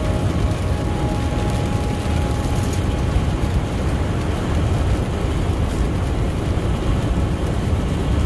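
Steady deep rumble under an even hiss of rain, with no breaks or distinct strikes.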